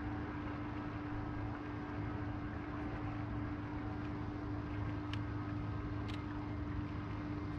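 Steady hum of a bass boat's bow-mounted electric trolling motor running, holding one even tone, with a few faint ticks in the second half.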